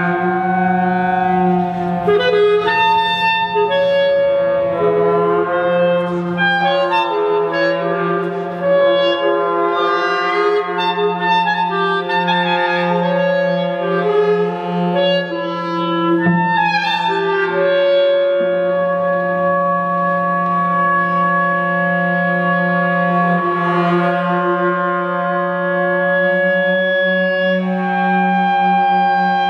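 Clarinet with a small ensemble of woodwinds and brass playing sustained contemporary chamber music. Long held notes shift slowly and overlap above a steady low drone, with no gaps.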